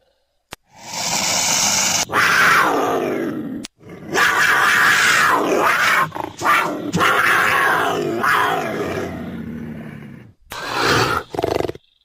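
Leopard calling: a series of loud, harsh roars, each sliding down in pitch, separated by short silent gaps.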